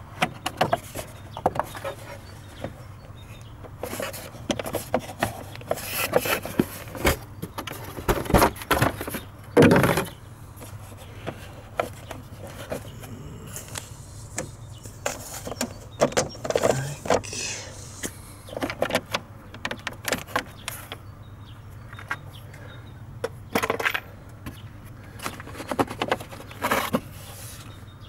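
Hand tools and loose metal and plastic parts clicking, clinking and knocking on and off as Torx T25 screws are worked out, with a cluster of louder knocks about eight to ten seconds in.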